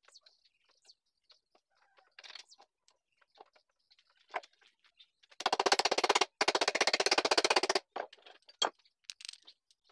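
Hand tool tightening a bolt on a part clamped in a bench vise: scattered small metal clicks and taps, then, about five and a half seconds in, a loud run of rapid clicking lasting about two seconds with a short break.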